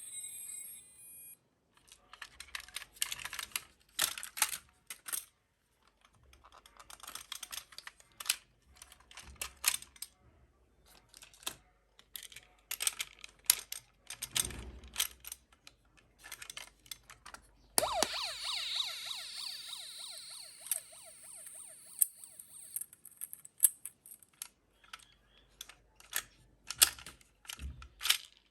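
Clicking and rattling of small plastic-and-metal toy cars being handled and rolled. About two-thirds of the way in, a sharp click sets off a toy emergency vehicle's electronic siren, which plays for about five seconds.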